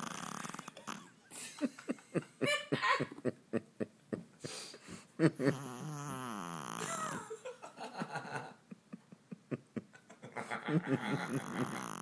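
A person laughing hard in several fits of rapid pulses over a small Shih Tzu's snoring. The snoring is a steady rasp, plain in the first second and between the fits of laughter.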